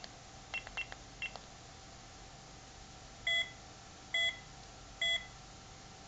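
Electronic keypad door-lock circuit beeping: three short, faint beeps as keys are pressed in the first second and a half, then three longer, louder beeps about a second apart.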